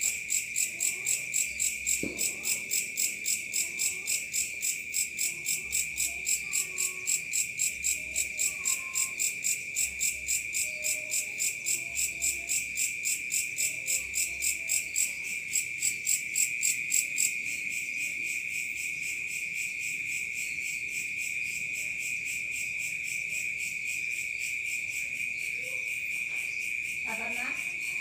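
Night insects calling together. One keeps up a steady, unbroken high trill throughout, while another chirps in a fast regular pulse of about three chirps a second that stops about two-thirds of the way through.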